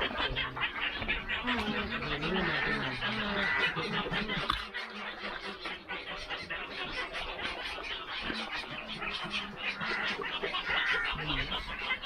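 Dense chatter of many waterbirds calling together at a nesting colony, rapid overlapping calls throughout. Low voices can be heard under it for the first few seconds.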